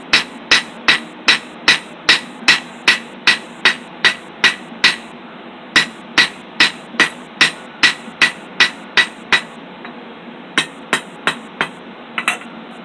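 Blacksmith's hammer striking hot 3/8-inch round steel stock on an anvil, flattening the end. It lands about two to three ringing blows a second. The hammering pauses briefly about five seconds in and again near nine seconds, then comes a short last run of blows.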